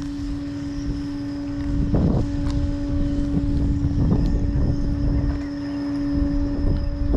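Wind buffeting the microphone in a low rumble, over a steady, unchanging mechanical hum. A few brief knocks or steps cut through, the strongest about two seconds in.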